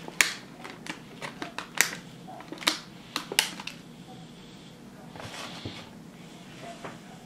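Sharp clicks and knocks of a black plastic cookie tray being handled and tilted upright, a handful of them in the first three and a half seconds. A softer rustle follows around five to six seconds in.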